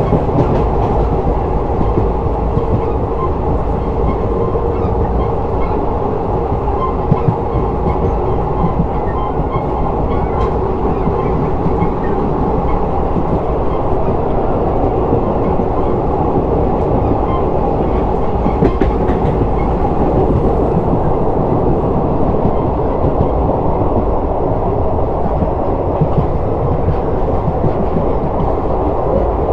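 Passenger train running steadily over the track, heard from on board: the wheels and coach running over rails at an even level throughout.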